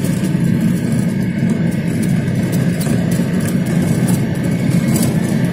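Car engine running steadily at low speed as the vehicle drives along a rough dirt track, with tyre and road noise.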